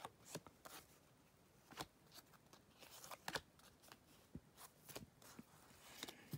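Faint rustles and scattered light clicks of cardboard baseball cards being handled and sorted by hand.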